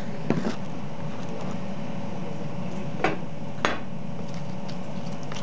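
A few light knocks and clinks as things are handled on a counter while a drink is prepared: one just after the start and two close together about three seconds in, over a steady background hum.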